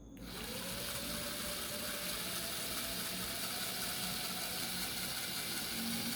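Small brushed DC motor, driven from an Arduino through an LM293D driver, starting up and running with a steady whirring hiss. Its faint whine rises in pitch over the first second or so and then holds nearly level.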